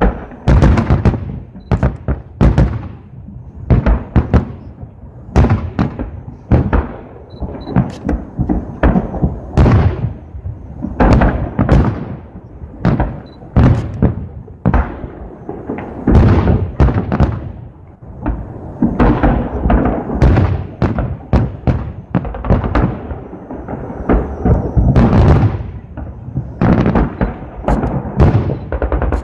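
Fireworks salute: a dense, irregular barrage of aerial shells bursting, loud booms following one another several a second, with a short lull about 18 seconds in.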